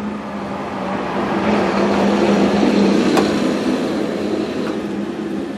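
A road vehicle passing by, its noise swelling to a peak about three seconds in and then fading, over a steady low hum, with one sharp click near the peak.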